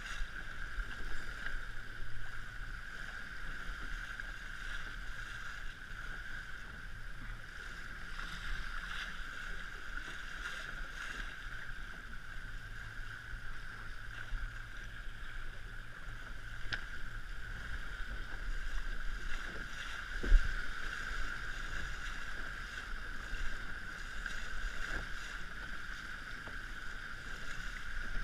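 Steady rush of water and wind as an RS100 sailing dinghy sails along, with one short low thump about twenty seconds in.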